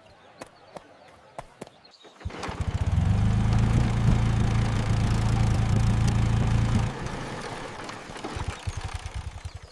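A small engine starting about two seconds in and running with a low, fast-pulsing rumble, then dropping back to a quieter rattle that fades out near the end.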